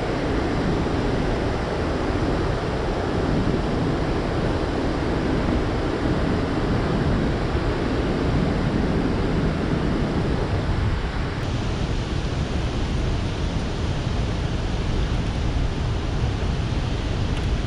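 Steady rushing of turbulent water below a dam spillway with its floodgates open and releasing, mixed with wind buffeting the microphone.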